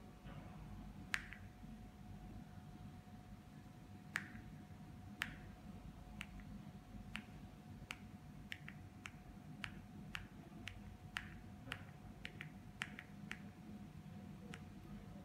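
Buttons of a small handheld infrared remote being pressed: short sharp clicks at irregular intervals, about eighteen in all, coming faster in the second half, over a faint steady high hum.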